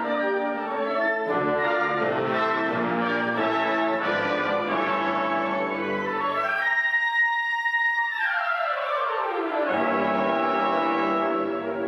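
Student concert band playing, with brass and woodwinds over piano and string bass. About six seconds in the lower parts drop out, leaving a few high held notes. The full band comes back in toward ten seconds.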